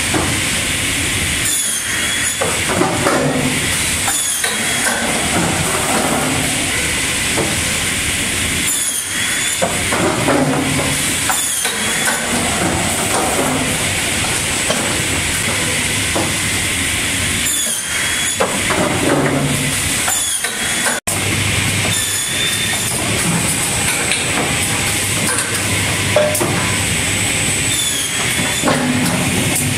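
Automatic lumber stacker running: steady machinery noise, with repeated short air hisses from its pneumatic cylinders and knocks and clatter of wooden boards being handled.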